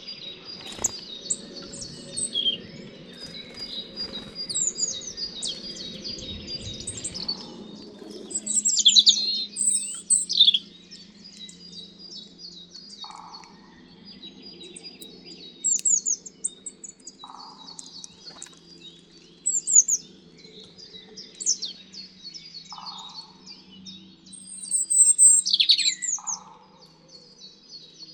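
Several wild songbirds singing at once: constant high chirping with louder, quick phrases that sweep down steeply in pitch every few seconds. In the second half a shorter, lower call repeats about every four seconds.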